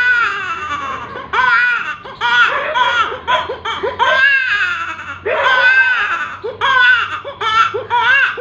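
A man's high-pitched vocal impression, a run of wavering cry-like calls that rise and fall and break off every second or so, much like a crying baby.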